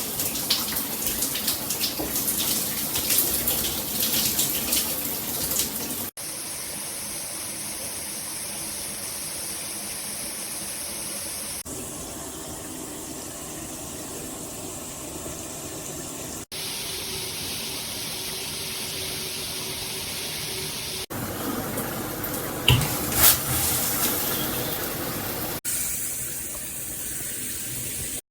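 FEELSO handheld shower head spraying water, a steady hissing rush heard in several short cut-together clips whose spray sound changes from clip to clip. Two brief knocks come near the end.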